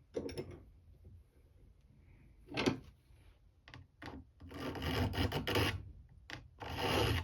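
A file scraping across the steel tip of a Craftsman screwdriver. A few short, separate strokes come first, then longer strokes from about halfway through, narrowing the blade to fit a revolver screw.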